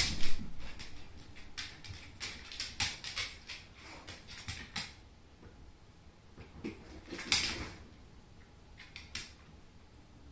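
A basset hound moving about on a hardwood floor and onto a blanket: scattered light clicks and taps of its paws, a short sharp knock at the very start, and a brief louder rustle about seven seconds in.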